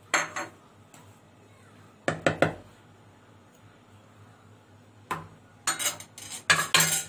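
Spoon and dishes clinking and knocking on a kitchen counter while spices are measured into a mixing bowl: a clink near the start, a short cluster about two seconds in, and a busier run of clinks in the last two seconds.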